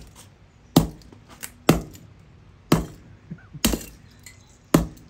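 A microwave oven's metal-cased high-voltage capacitor being struck hard five times, about one blow a second, each a sharp bang with a brief ring.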